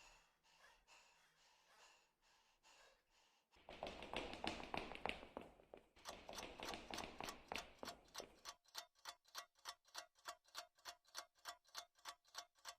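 Clock ticking evenly, about three ticks a second, starting about six seconds in. Before that, near silence with a few faint clicks, then a short stretch of rustling noise.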